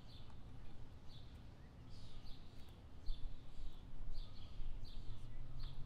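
Small birds chirping outdoors: short high chirps repeating about twice a second over a low background rumble that grows louder near the end.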